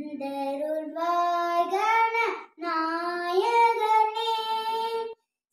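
A young girl singing a Tamil devotional song to Ganesha, unaccompanied, in long held notes: two phrases with a short break between them about two and a half seconds in, and a brief pause near the end.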